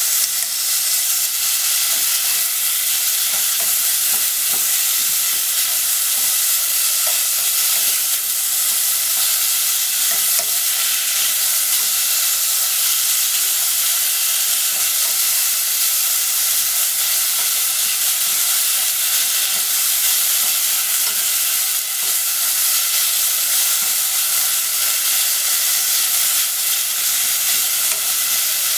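Sliced pork sizzling and frying steadily in a hot pot, a continuous high hiss. Wooden chopsticks stir and turn the meat, adding small clicks and scrapes against the pot.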